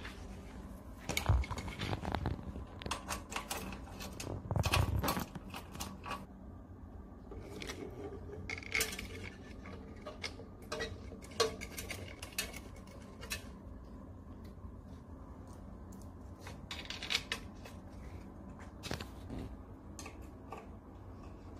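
Metal clicks, clinks and scrapes of parts being handled and adjusted on a round-bottle labeling machine. The clatter is densest in the first five seconds, then thins to scattered single clicks.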